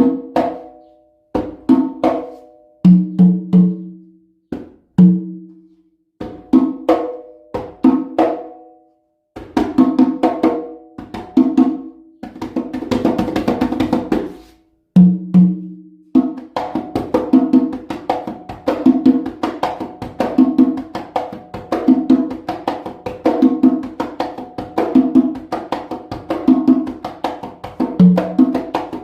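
Conga drums fitted with handmade synthetic heads, played by hand: ringing open tones at a low and a higher pitch with sharper slaps. Single strokes and short phrases at first, then a fast roll about halfway, and from there a steady repeating rhythm.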